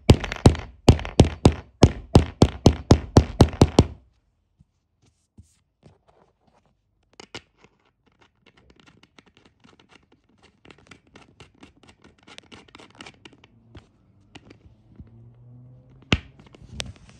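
A fast run of sharp metal-on-wood knocks, about five a second, as a pronged steel T-nut is tapped into the cabinet's particleboard panel; they stop about four seconds in. Then come faint light clicks as a threaded leveling-foot bolt is screwed into the nut by hand, with two sharper clicks near the end.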